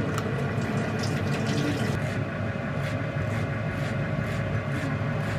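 A steady low hum fills the kitchen, and over it come soft, scattered knocks of a Mac kitchen knife slicing a leek on a wooden cutting board, mostly in the second half.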